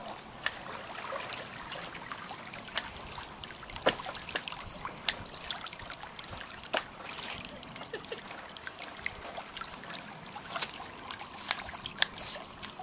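Pool water splashing and trickling as a Cairn terrier paddles, with many short sharp clicks and brief splashes scattered throughout.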